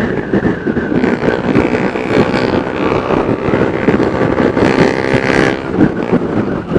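Honda New CB150R's single-cylinder engine through a 3Tech Racing Evolution Spartan GP aftermarket racing exhaust, heard from a bike following behind it: a loud, rapidly pulsing exhaust note that swells twice as the rider opens the throttle. Wind buffets the microphone.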